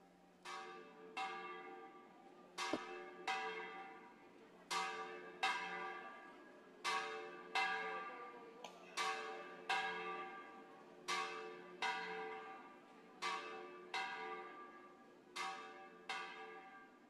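Church bells ringing a steady pattern of strokes in pairs, two strokes close together and then a pause, each note ringing out and dying away. A faint steady hum lies underneath.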